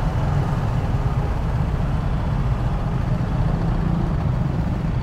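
TVS Apache RR 310's single-cylinder engine running steadily at low speed as the motorcycle rolls slowly to a stop, a continuous low rumble with street traffic around it.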